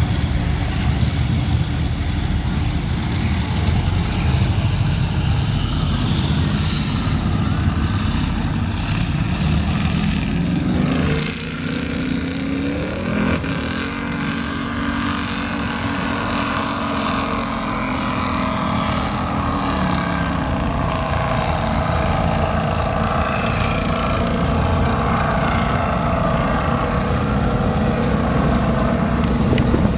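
Offshore racing catamaran's engines running hard as it accelerates away, the pitch climbing over the first ten seconds. After a brief dip it settles into a steady drone as the boat runs off into the distance.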